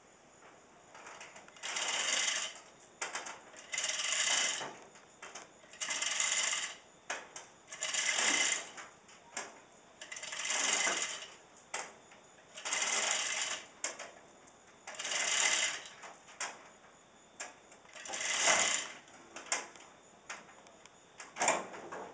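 Manual chain hoist being hand-pulled to lift a truck cab: its chain and ratchet clatter in about nine bursts, roughly one every two seconds, with lighter clicks between. Crickets chirp faintly throughout.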